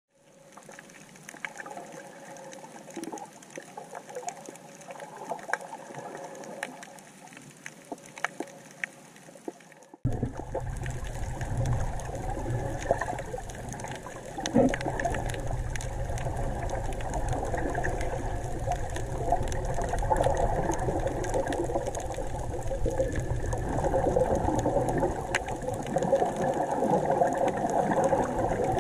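Underwater sound of hookah divers breathing through their regulators, exhaled air bubbling and gurgling, with scattered sharp clicks. About ten seconds in it becomes abruptly louder and a steady low rumble joins.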